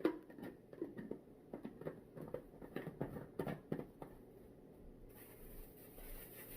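A protein shaker being handled and unpacked: a run of light taps, knocks and rustles over the first four seconds, then quieter handling.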